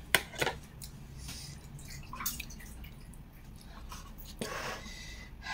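Close-miked eating sounds: a couple of sharp clicks just after the start, then soft wet mouth sounds and a short noisy burst about four and a half seconds in.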